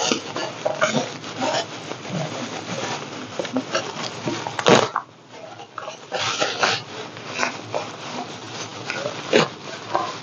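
Plastic bubble wrap crinkling and rustling as it is pulled open by hand, in irregular crackles with a short lull about five seconds in.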